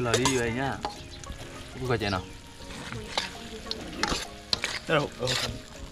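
Raw fish pieces sliding from a metal bowl into a wok of simmering tomato curry, then a metal spoon stirring and scraping against the wok over a steady sizzle. A brief voice is heard at the start.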